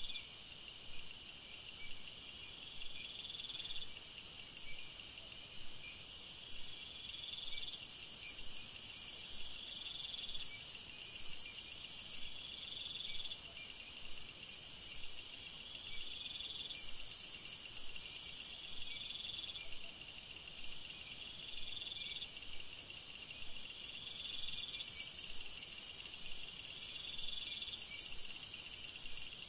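Night-time chorus of crickets and other insects: steady high chirping trills in regular repeating bursts, with a higher shrill buzz that swells up three times for a few seconds and cuts off suddenly each time.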